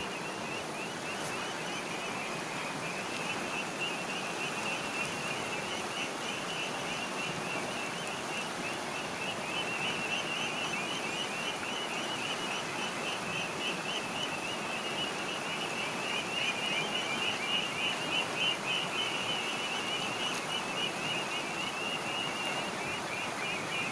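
Shallow, murky river water running over and around boulders, giving a steady even rushing. Over it runs a continuous high-pitched chirring trill, typical of insects, a little louder in the second half.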